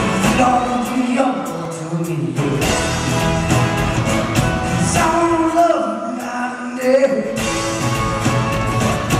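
Live rock band playing: electric guitars and a bass guitar with a man singing.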